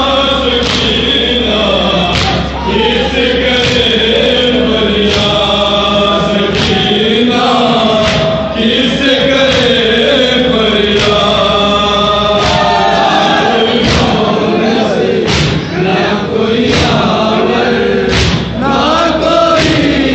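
A group of men chanting a noha (Shia lament) in unison through a microphone, with sharp rhythmic slaps of hands beating on chests (matam) about every one and a half seconds.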